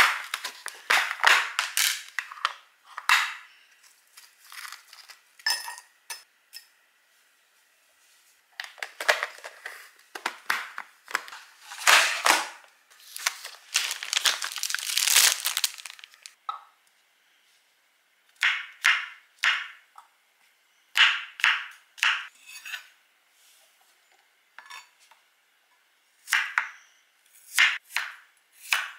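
Plastic food packaging crinkling and rustling as groceries are handled on a kitchen counter, with a long stretch of rustling near the middle. Later, a chef's knife slicing garlic cloves on a cutting board: single sharp cuts in small groups.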